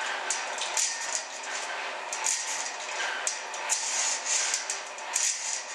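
Kayak ergometer being paddled: a steady whooshing from its air-brake flywheel, swelling with each stroke, with sharp clicks from the cord mechanism.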